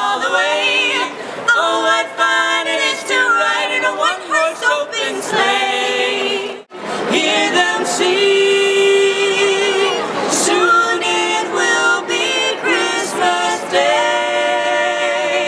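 Three carolers, two women and a man, singing a Christmas carol a cappella in harmony. The singing breaks off for an instant about seven seconds in.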